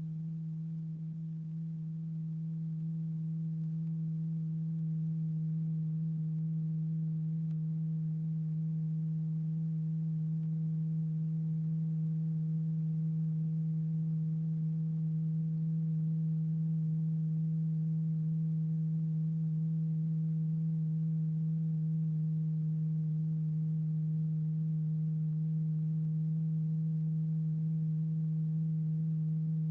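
A steady low pure tone with a couple of faint overtones: the sine-wave note that vibrates a stretched paper diaphragm strewn with lycopodium powder, holding one frequency to keep a flow pattern going. It swells a little over the first few seconds, then holds level.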